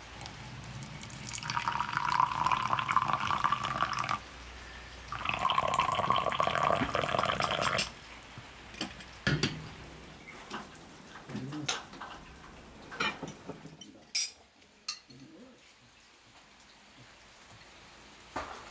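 Tea poured into a pear-shaped tea glass in two pours of about three seconds each, from a teapot and a brass samovar tap. A few faint clicks follow.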